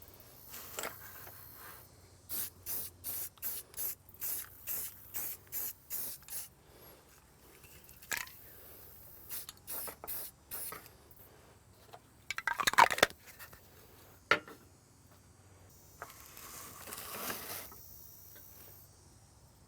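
Aerosol can of self-etching primer sprayed in many short, quick bursts, then a loud clatter around the middle and a longer spray a few seconds later.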